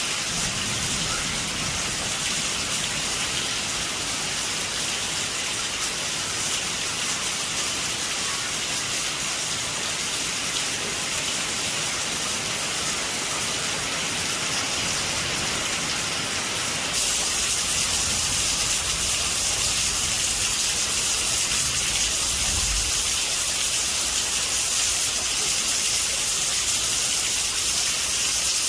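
Heavy rain drumming steadily on a metal roof, a dense hiss that turns louder and brighter about halfway through. Low rumbles of thunder swell underneath near the start and again in the second half.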